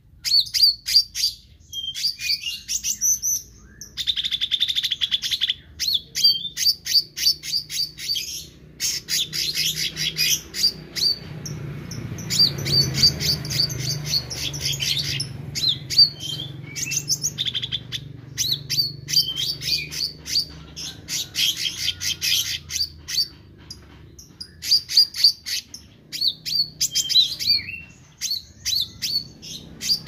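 A caged meranti, a green leafbird, singing at full volume: rapid high chirps and trills in phrases of a few seconds, each broken by short pauses.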